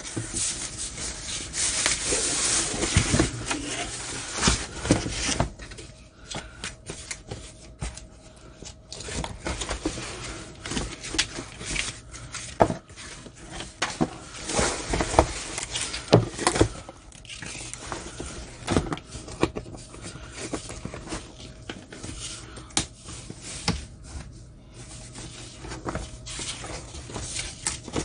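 Thin foam packing wrap being peeled back and rustled for the first few seconds, then a fabric-covered folding solar panel shifted about in its cardboard box, with scattered scrapes and knocks.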